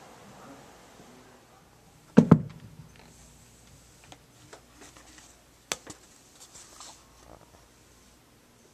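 Two quick, dull thumps close together about two seconds in, then a sharp click a little before six seconds and a few faint taps and rustles over quiet room tone.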